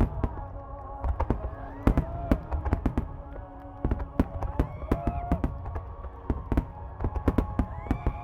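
Aerial fireworks shells bursting in quick succession: sharp cracks several times a second over a continuous low rumble of booms. A sung melody plays underneath.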